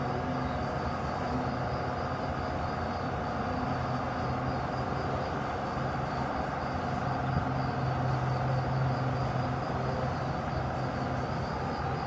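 Autumn insects singing a continuous high, slightly pulsing trill, over a steady low rumble.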